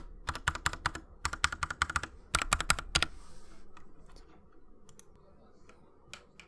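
Fast typing on a Kemove Snowfox 60% mechanical keyboard fitted with Gateron Brown switches, a quick run of keystroke clicks with two short pauses. About three seconds in the typing stops, and only a few scattered, fainter single key presses follow.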